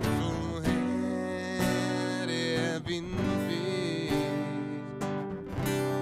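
Acoustic guitar strumming chords in an instrumental passage, with a steady pulse of strokes.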